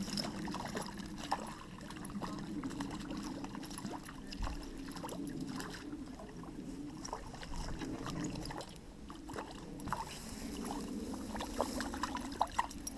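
A hooked brown trout splashing at the surface of a small creek as it is reeled in, quiet throughout, with a few sharper splashes near the end.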